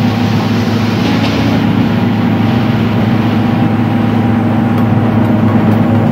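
Haybuster H800 tub grinder running off the tractor's PTO and grinding a hay bale: a loud, steady mechanical drone with a rushing noise of hay and chaff over it. The rush eases about two seconds in while the drone carries on unchanged.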